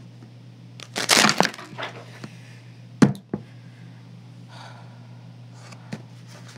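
A deck of playing cards being riffle-shuffled: a quick, dense flutter of cards about a second in, lasting about half a second. About three seconds in comes a sharp knock on the table, with a lighter one just after.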